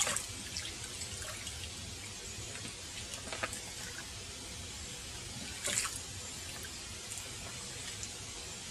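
Lake water splashing and sloshing as a soft water bag is dipped by hand to fill it. There are three sharper splashes, near the start, about a third of the way in, and the loudest about two-thirds of the way in.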